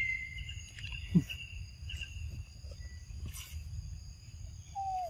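Steady insect chorus with several high ringing tones, over a low outdoor rumble. A brief sharp sound about a second in is the loudest moment, and a short falling tone comes near the end.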